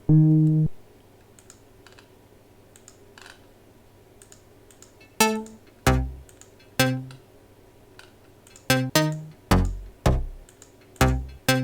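Electronic bass samples being auditioned: one short pitched bass note at the start, then a few seconds of only faint mouse clicks, then a run of about nine short decaying bass notes at different pitches, one after another.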